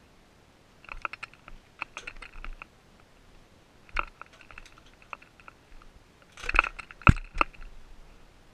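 Irregular clusters of short clicks and knocks, like a small camera being handled and bumped, loudest about six and a half to seven and a half seconds in.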